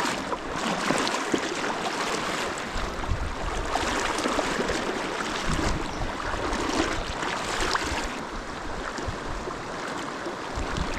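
Fast river current rushing steadily, with low rumbling coming and going at times.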